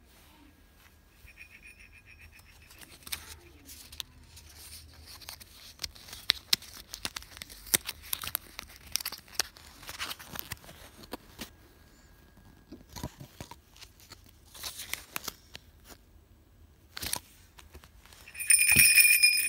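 Hands handling a plush animatronic dog stocking and its cardboard hang tag: rustling fur and crinkling, flicking card with small clicks. Near the end the little bells on the dog's ears jingle loudly for about a second.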